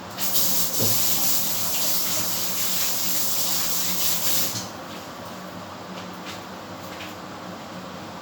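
Kitchen tap running as hands are washed under it, a steady hiss of water for about four and a half seconds that stops when the tap is turned off.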